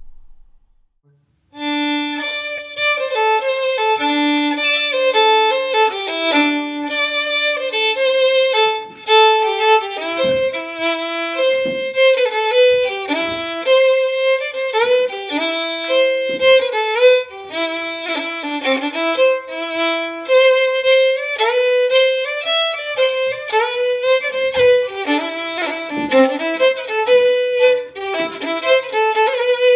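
Fiddle playing a tune, starting about a second and a half in after a brief silence, with quick changes of note.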